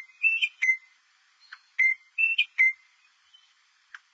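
Rosella calling: short, clear whistled notes in phrases of three or four that step up in pitch and drop back. The phrases repeat about every two seconds.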